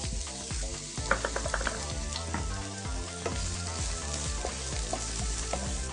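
Sliced onions sizzling as they fry in hot coconut oil in a non-stick pan, being stirred, with scattered small clicks and pops throughout.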